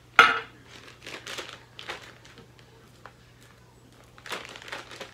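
Glass Pyrex measuring cup knocking sharply with a brief ring just after the start, followed by a few lighter taps and plastic bag rustles as shredded cheese is shaken into a zipper bag and the cup is set down.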